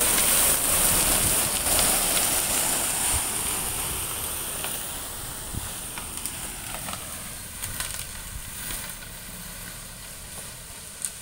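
Sand-and-gravel fill pouring out of a tipped dump truck bed as the truck creeps forward spreading it: a steady gritty hiss with scattered clicks of stones over the truck's running engine, fading as the truck pulls away.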